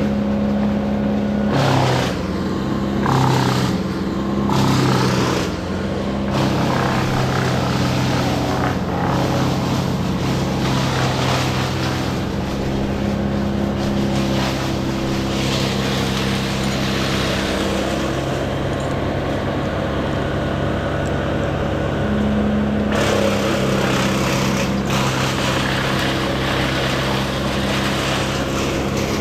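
An engine running continuously, its speed stepping up and down several times.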